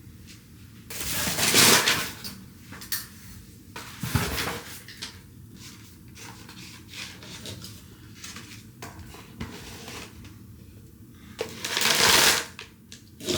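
Objects being handled: scattered small knocks and clicks, with two longer rustling swells, one about a second in and one near the end.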